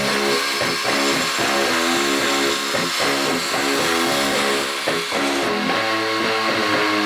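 Background music: a guitar-led instrumental track with a steady, even loudness and changing notes.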